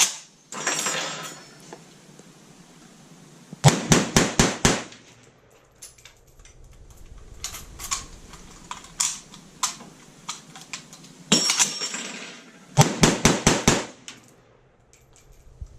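SKS semi-automatic rifle in 7.62x39 fired five times in quick succession, then scattered metallic clicks and clatter as it is reloaded, then five more quick shots near the end.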